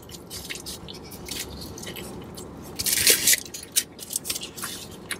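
Close-up chewing of a mouthful of chicken burrito, with wet mouth clicks and smacks throughout and a short, louder rustle about three seconds in.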